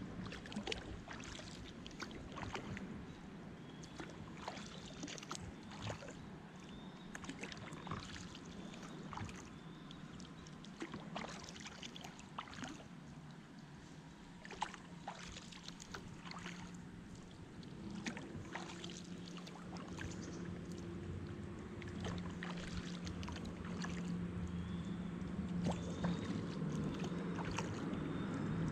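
Kayak paddle strokes: the blades dip and splash, with water dripping and light clicks about once a second. A low steady hum comes in about two-thirds of the way through and grows louder toward the end.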